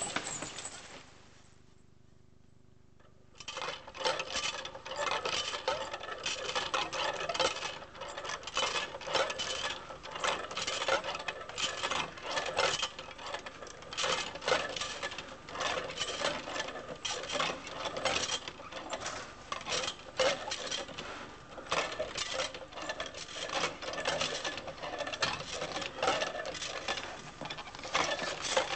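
Hand-cranked kinetic sculpture of wire rods, a tin box and a brass dish clattering: a dense run of quick, irregular metallic clicks and rattles, after a short lull near the start.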